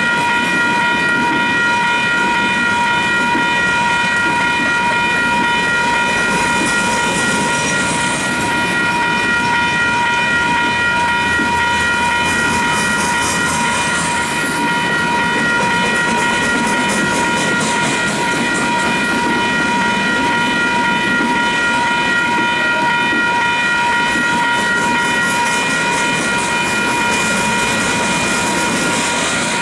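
Freight train of refrigerated boxcars rolling past, wheels rumbling and clicking on the rails, over a steady high-pitched ringing made of several tones held throughout.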